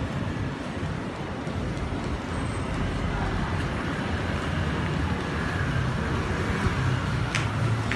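City street ambience: a steady mix of traffic rumble and general street noise, with a short sharp click near the end.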